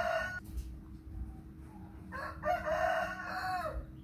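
Rooster crowing twice: the tail of one crow ends about half a second in, and a second full crow of nearly two seconds starts about two seconds in, dropping in pitch at its end.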